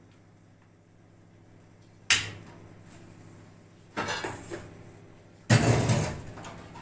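Stainless steel plates and pans clattering as they are washed and handled. There is a sharp clank about two seconds in, a short run of knocks about four seconds in, and the loudest, longest clatter near the end.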